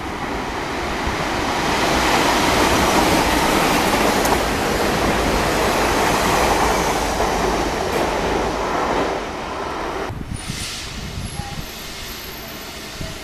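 Double-deck RER C commuter train passing through the station at speed without stopping: a loud rush and rumble of wheels on rail that builds over the first couple of seconds, then falls away sharply about ten seconds in as the last car goes by.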